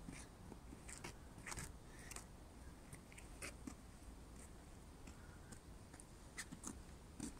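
Quiet forest ambience: a low hiss with faint, irregular clicks and crunches, clustered about a second in and again near the end.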